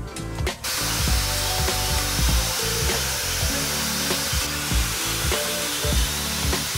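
A spinning wire brush on a power tool scouring rust off the metal body of an old iron, a steady hiss that starts about half a second in, with background music under it.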